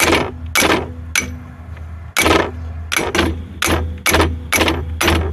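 Hammer blows on a seized, rusted steel driveline, about ten sharp metallic strikes at an uneven pace, driving the stuck telescoping shafts apart as they begin to move. A low steady hum runs under the strikes.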